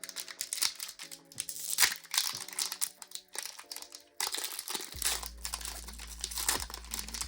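Foil Pokémon booster pack wrapper crinkling and being torn open by hand, an irregular run of crackles.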